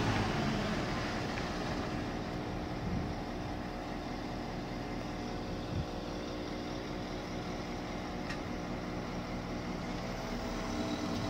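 Heavy diesel engine running steadily at idle, with a light knock about three seconds in and another just before six seconds; the drone gets a little louder near the end.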